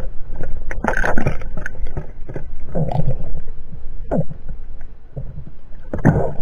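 Muffled water gurgling and bubbling around an underwater camera, coming in irregular surges.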